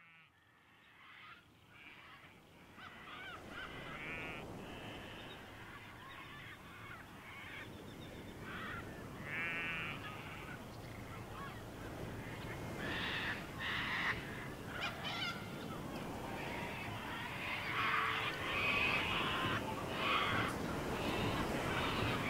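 Outdoor ambience of birds honking and squawking over a steady background rush. It fades in from silence and grows louder and busier, with calls crowding together in the second half.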